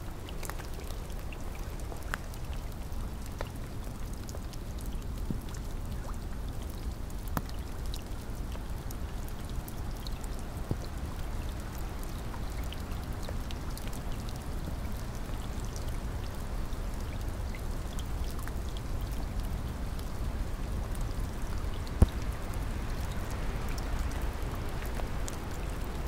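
Steady heavy rain, a dense even hiss with a low rumble under it and scattered drops ticking. One sharper, louder tick comes late on.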